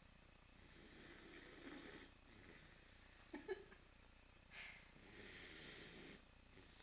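Northern Inuit dog snoring in its sleep: slow, noisy breaths with a thin, high whistling hiss on them. A brief, sharp sound about three seconds in is the loudest moment.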